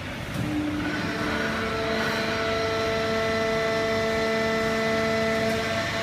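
Fully automatic horizontal hydraulic waste-paper baler running: a steady mechanical drone, joined about a second in by a whine of several steady tones that then holds evenly.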